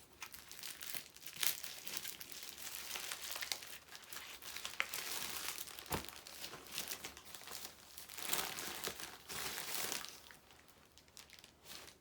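A purple mailing bag being handled and opened by hand: continuous crinkling and tearing of packaging with sharp crackles, dying down near the end.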